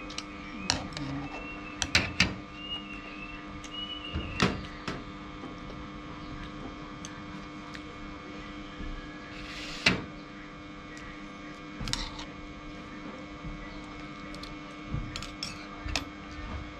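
Spoons and chopsticks clicking against bowls now and then during a meal, over a steady hum.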